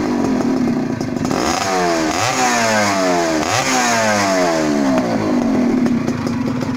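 Suzuki Tornado GS's two-stroke single-cylinder engine, fitted with a DSK Neomax unlimiter CDI, revved with free throttle blips while standing. Three times the revs climb sharply and then fall slowly back toward a steady idle.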